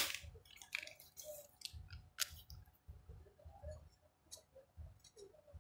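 A cordless saw being handled: one sharp click at the start, then scattered faint clicks and soft knocks of its hard plastic body being moved and set down. The motor is not running.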